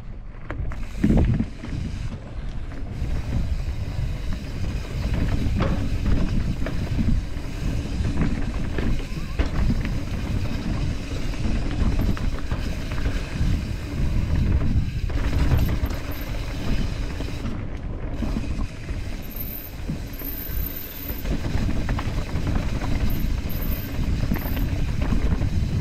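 Mountain bike descending a rocky dirt trail: steady wind rumble on the microphone, with continual rattling and knocks from the tyres and bike over rocks and roots.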